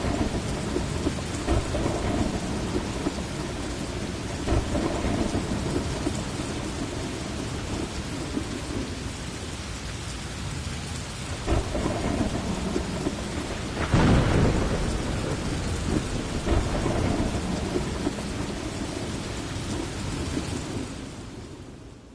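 Heavy rain falling steadily through a thunderstorm, with thunder rumbling in repeated swells and one loud clap about fourteen seconds in. Near the end the sound fades away.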